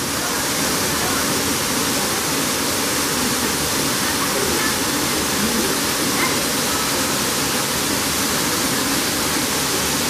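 Waterfall pouring onto rocks: a steady, even rush of falling and splashing water.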